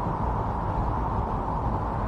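Strong snowstorm wind blowing steadily: an even, dull rush with no gusts or separate sounds standing out.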